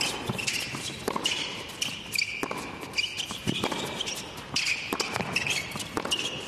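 Tennis doubles rally on an indoor hard court: several sharp racket-on-ball strikes, mixed with the squeak of players' shoes on the court surface.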